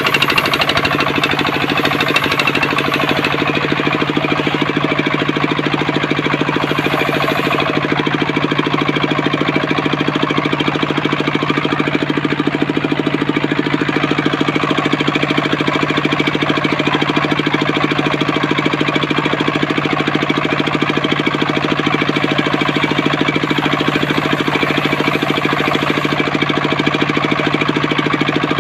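Homemade circular sawmill rig running steadily, with an even machine hum and a constant hiss over it.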